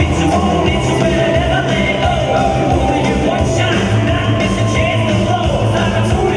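Rock music with singing, playing steadily and loudly.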